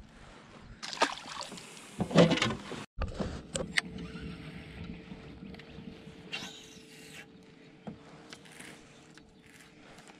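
Electric trolling motor on a bass boat humming steadily from a few seconds in, with a few knocks and rustles of handling before it starts.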